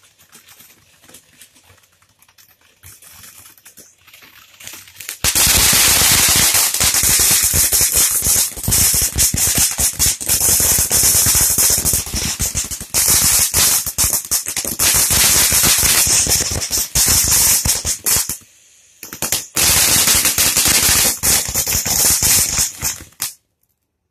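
Dream Flower fountain firework spraying sparks. It starts with a faint hiss, then about five seconds in breaks into loud, dense rapid crackling. The crackling drops out briefly near the end, resumes, and cuts off about a second before the end as the fountain burns out.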